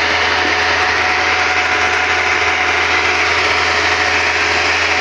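Kubota rice combine harvester running steadily under load, its engine and threshing machinery making a continuous loud mechanical noise.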